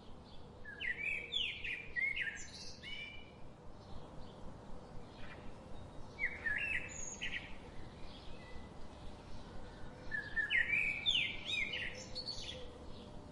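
A songbird singing bursts of quick chirping notes three times, about a second in, around six seconds in and around ten seconds in, over a steady low background hiss.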